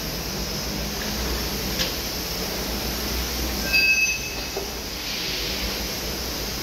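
Steady low machinery hum of a truck workshop, with a light click about two seconds in and a brief high squeak about four seconds in.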